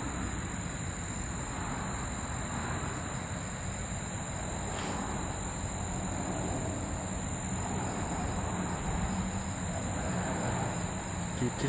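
Steady chorus of insects shrilling at a high pitch, over a low, even rush of wind.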